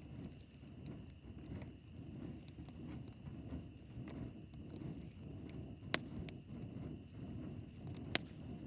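Campfire burning: a low, uneven rumble of the flames, with two sharp pops about two seconds apart in the second half.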